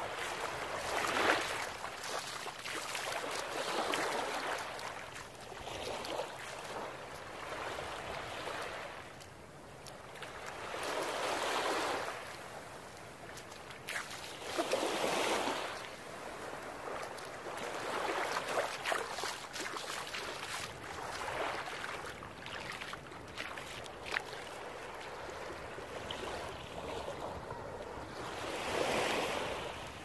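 Small waves breaking and washing up onto a beach, a fresh surge coming every three to four seconds.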